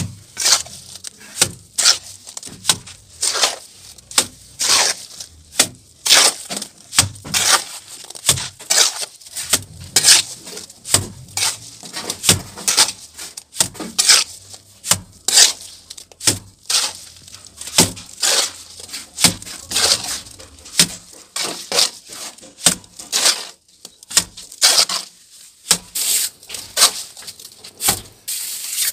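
Plastering trowel scraping and smoothing wet cement mortar on a wall in repeated short, irregular strokes, about one or two a second.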